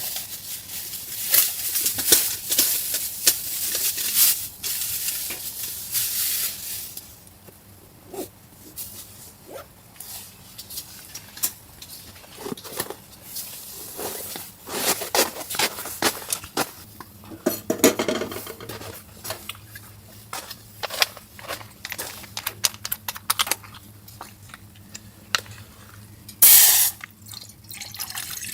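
Irregular crunching, clicking and clattering, as of gear or utensils being handled, with a dense hissing crunch over the first several seconds and a loud short rush near the end.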